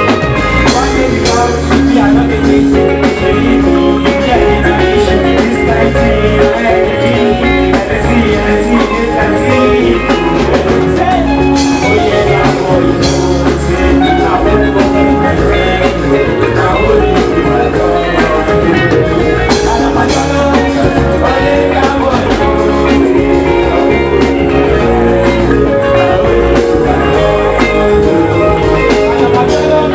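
Loud music with a steady beat, continuous throughout.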